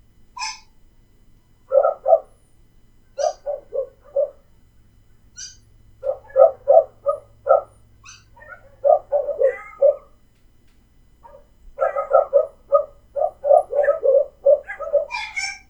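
Dogs barking in quick bursts of several barks each, with short pauses between the bursts. The barking grows denser over the last few seconds.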